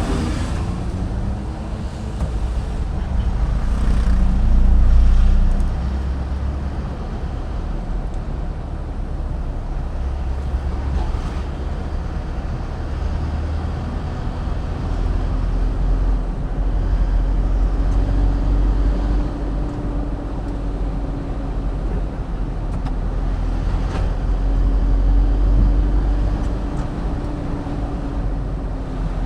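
Car being driven, with a steady low rumble of engine and road noise. The engine note rises and falls as it speeds up and eases off, loudest about five seconds in and again near the end.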